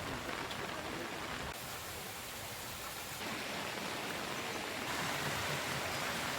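Steady rushing noise of rain and floodwater, changing abruptly in tone a couple of times as the footage cuts between shots.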